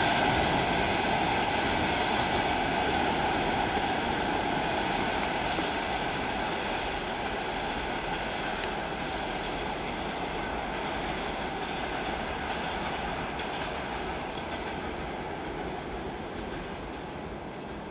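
Freight train of hopper wagons rolling away along the track: a steady rumble of wheels on rail that fades gradually as the train recedes. A thin, very high squeal rides over it in the first half, then dies away.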